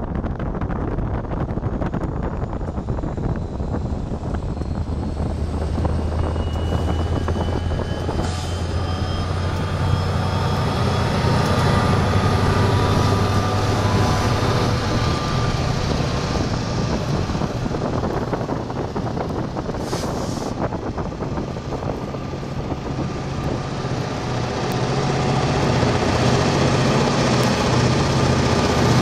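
Diesel-electric freight locomotives, Union Pacific 1375 and an HLCX unit, running past at low speed with a steady low engine drone that steps up in pitch about nine seconds in, and a faint high whine above it.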